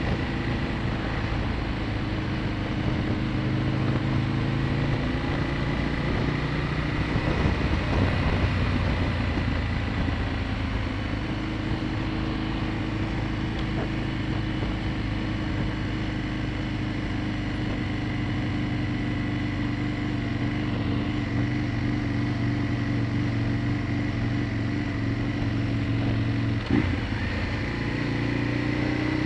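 Aprilia Tuono motorcycle engine running at a steady, moderate speed with wind and road noise, holding its pace behind slower traffic. A short thump near the end.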